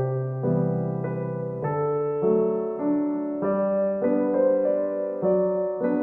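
Background piano music: soft sustained chords over low bass notes, with a new note or chord about every half second to a second.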